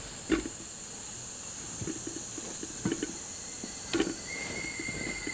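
Steady high-pitched insect chorus, with a few scattered soft knocks. A thin, steady whistle-like tone joins about four seconds in.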